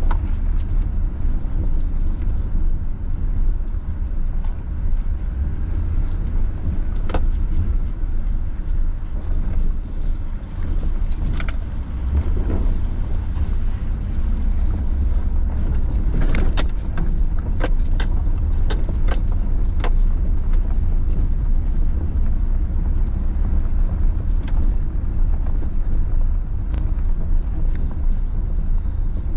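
Steady low rumble of a car driving, with scattered light rattles and clicks.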